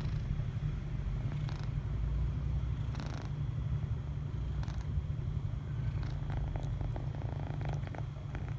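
Kitten purring steadily while being stroked, with a few faint rustles of fur and fabric.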